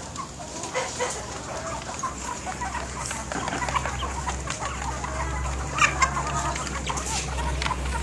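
A flock of hens clucking and calling over one another in short, scattered calls while they feed.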